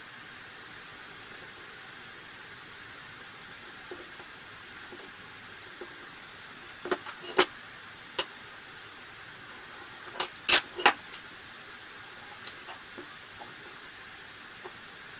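Sharp clicks and clacks of hand tools handled on a wooden workbench, a tape measure, pencil, dowel and clamp, in two short clusters about seven and ten seconds in, over a steady hiss.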